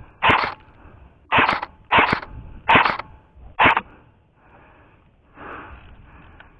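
Five shots from an airsoft rifle, each a sharp snap with a short puff after it, spaced irregularly over about three and a half seconds.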